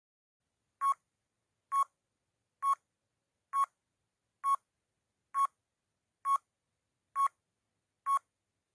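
Countdown timer sound effect: nine short electronic beeps, evenly spaced at a little under one a second.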